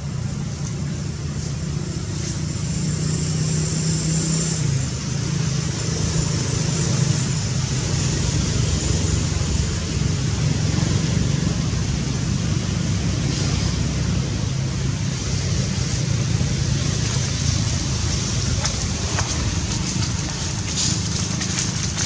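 Steady low rumble with an even hiss over it, continuous outdoor background noise, with a few faint clicks in the second half.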